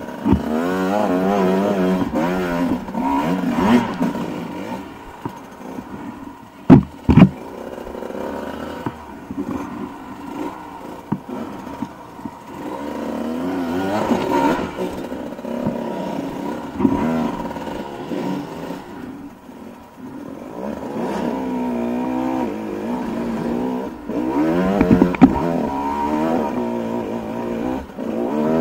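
Dirt bike engine revving up and down in repeated throttle bursts while climbing a steep, rocky track. There are two sharp knocks a moment apart about seven seconds in.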